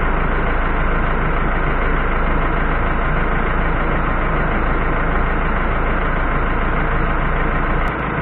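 Ford F-100's Cummins ISBe diesel engine idling steadily.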